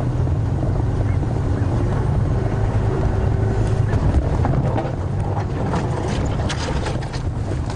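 Safari game-drive vehicle's engine running steadily as it drives through the bush, with short rattles and clatters a few seconds in.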